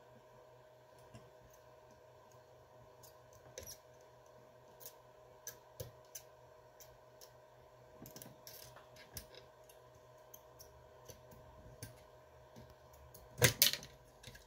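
Small scattered clicks and taps of metal tweezers working a copper transistor heat sink loose from an amplifier circuit board during desoldering, with a brief louder clatter about thirteen seconds in as the heat sink comes off. A faint steady hum underneath.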